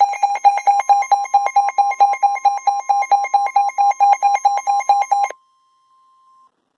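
Weather radio alert: a rapid, loud electronic alarm beeping over the steady 1050 Hz NOAA Weather Radio warning tone, the signal that a warning message is about to be broadcast. The beeping stops about five seconds in, and the steady tone carries on alone for about another second before cutting off.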